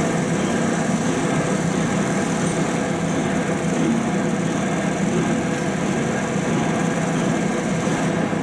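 Diesel locomotive running, a steady engine drone with a constant hum.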